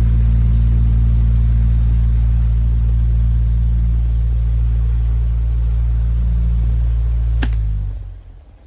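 Xpelair Taurus T12 electric fan running with a loud, steady low motor hum. A sharp click comes near the end, and the hum dies away just after it.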